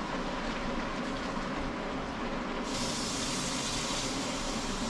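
A steady hiss from the pork mixture cooking in the wok; a little over halfway through, a kitchen tap is turned on suddenly and water runs steadily into the sink.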